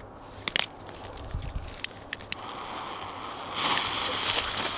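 A few sharp clicks, then a 'Stars and Cards' children's firework fountain (category F1) fizzing to life: a faint hiss begins a little past halfway and swells to a loud, steady hiss as the fountain starts spraying sparks near the end.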